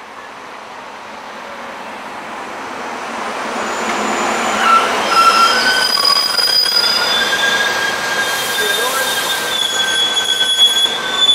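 SEPTA Silverliner IV electric multiple-unit train pulling into a station and braking. The rumble of the cars grows louder as it comes in, then from about five seconds in, steady high squeals of several pitches come from the brakes and wheels as it slows to a stop.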